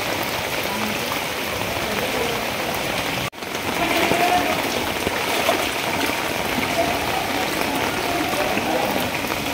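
Steady rain falling on knee-deep floodwater, with water sloshing around people wading through it; the sound cuts out for an instant about three seconds in.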